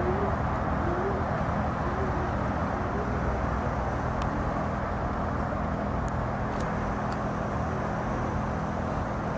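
Steady hum of distant road traffic outdoors, with a few faint ticks in the middle.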